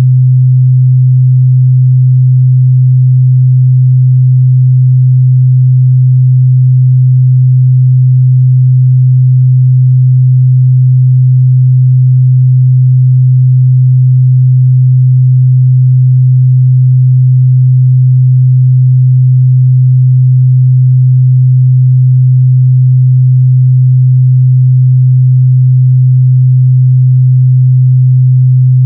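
A steady, loud 128 Hz sine test tone: a single pure low hum that holds unchanged in pitch and level.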